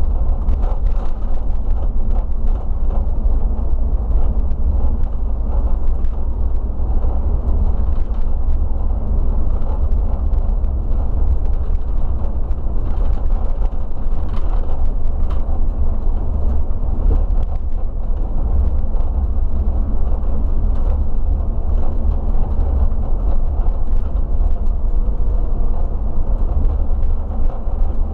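Coach engine and road noise from the driver's seat while driving: a steady, loud low rumble with faint scattered rattles.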